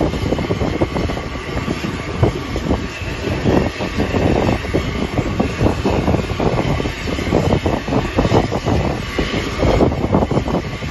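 Aircraft engine running nearby, a loud, steady rush with a fluttering low end.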